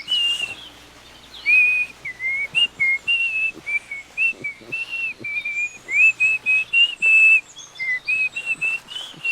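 A bird whistling a long run of short, clear notes in quick succession, some rising and some falling, with faint chirps and clicks between them.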